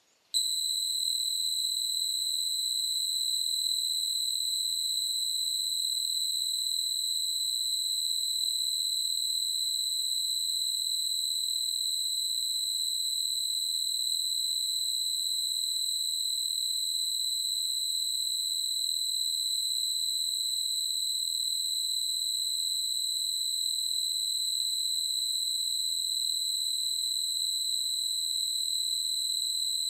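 A steady, high-pitched electronic beep tone at a single unchanging pitch, with faint overtones above it. It starts suddenly just after the beginning and holds at an even level without a break.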